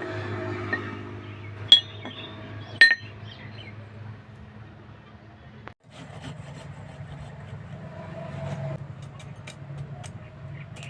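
Two sharp, ringing hammer strikes on steel about a second apart, over a steady low hum, followed by scattered faint light taps.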